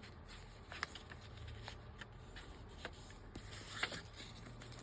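Paper pages rustling and crinkling as they are handled and folded, with small scattered ticks. The loudest rustle comes near the end.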